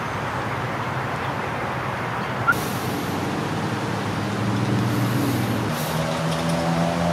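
A motor vehicle running close by in the rain: a steady hiss with a low engine hum that grows stronger over the last couple of seconds. There is one short sharp click about two and a half seconds in.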